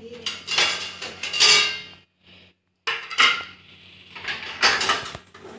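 Steel plates and dishes clattering against each other and the metal wire rack of a kitchen drawer as they are pulled out, in two bursts with a short pause about two seconds in.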